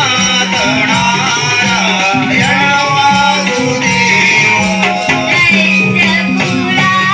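Live Naman folk-theatre music for the Krishna-leela: a sung devotional melody with instrumental accompaniment over a steady beat.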